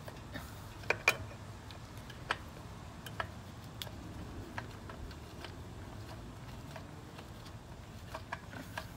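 Faint, irregular small clicks and ticks as an oil filter is spun onto its threaded mount by a gloved hand, the sharpest pair about a second in.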